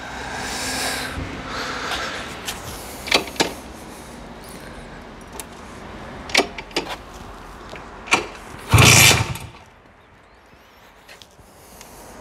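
Simson moped's single-cylinder two-stroke engine running, with a short loud rev about nine seconds in, after which it falls quieter. Several sharp clicks come before the rev.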